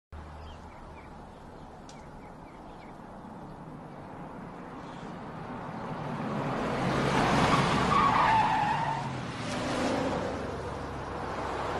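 Car on the road coming closer and going past, its engine and tyre noise growing louder to a peak about eight seconds in, then easing off.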